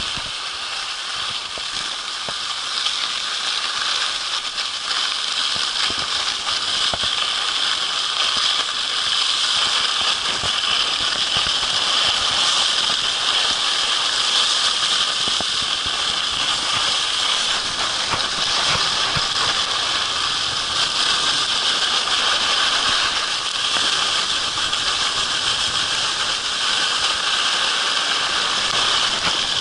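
Skis sliding over snow: a steady hiss with a rough, crackling scrape, growing louder over the first several seconds as the husky pulls the skier faster.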